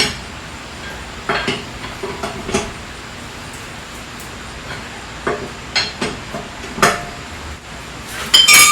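Scattered metal clinks and knocks from handling hand tools and lug nuts during a wheel change, ending near the end in a louder clank that rings briefly.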